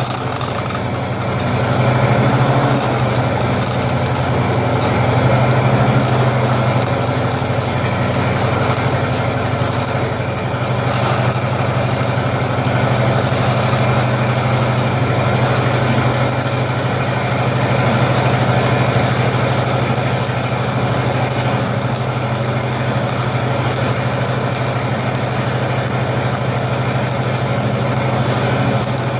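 Lincoln SA-200 engine-driven welder's gasoline engine running steadily at welding speed, under the crackle of a stick-welding arc. The engine sounds like it needs a tune-up: plugs or a carburetor cleaning.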